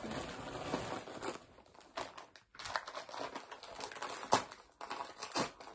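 Plastic bags and packaging rustling and crinkling as gifts are handled, with a few light taps and one sharper knock about four seconds in.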